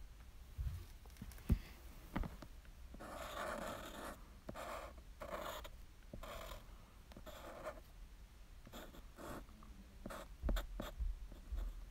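Black marker pen drawing on a paper card: a series of short, irregular scratching strokes starting about three seconds in. Before them come a couple of light knocks, the sharpest about a second and a half in.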